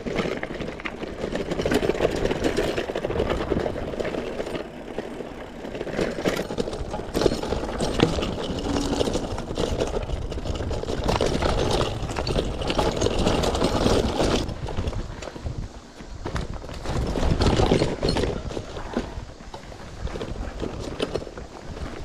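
A mountain bike being ridden over a rough trail: tyres rolling on dirt and rock, with a constant irregular rattle and clatter from the bike. The level dips briefly about two-thirds of the way through.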